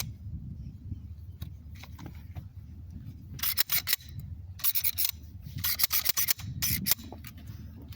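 Short bursts of clicking and scraping from handling a Glock 21 pistol while checking it for a jam, starting about three and a half seconds in, over a low steady rumble.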